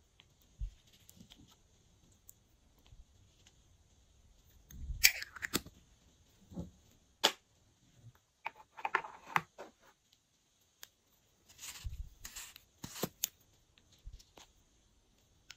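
Small handling sounds of a plastic spatula scraping lip balm out of a small metal tin and of the tins and lids being handled: scattered sharp clicks and short scrapes and rustles, the loudest clicks about five, seven and thirteen seconds in.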